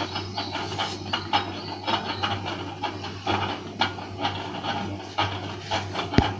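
Small plastic clicks and scraping as a JioPhone's battery and back cover are handled and fitted, with a steady low hum underneath and one sharp knock near the end.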